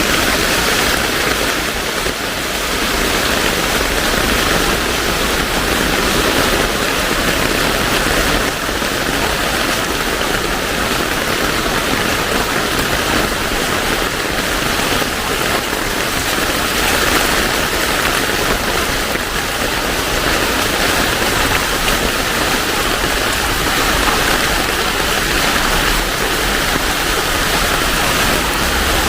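Heavy rain falling hard and steadily, with a dense, unbroken hiss of water.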